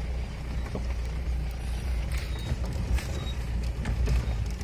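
Mahindra Bolero driving over a rocky dirt track, heard from inside the cab: a steady low engine rumble with scattered knocks and rattles.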